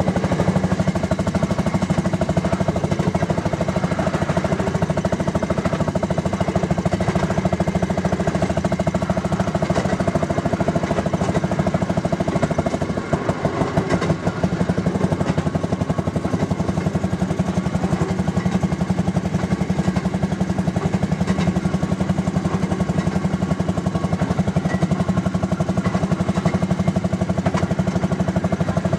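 The 8 hp Fairmont ROC single-cylinder two-stroke engine of a Fairmont M9 railroad speeder running steadily with its fast putt-putt firing rhythm as the car travels down the track. The sound eases briefly about halfway through, then picks back up.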